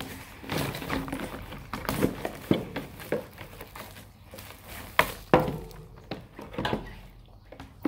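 Plastic shrink wrap crackling and rustling as it is cut and pulled off a cardboard box, with sharp knocks as the box is handled on a glass tabletop; two of the loudest knocks come about five seconds in.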